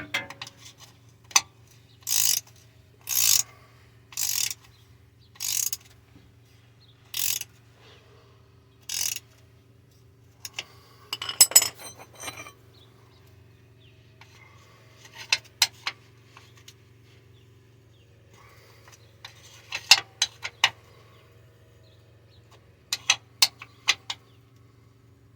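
Hand ratchet clicking in six short strokes over about seven seconds as the transfer case fill plug is tightened down. Then come scattered metal clicks and clinks of tools.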